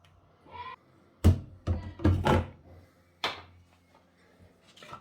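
A handful of sharp knocks and thuds, about four, the loudest just after a second in.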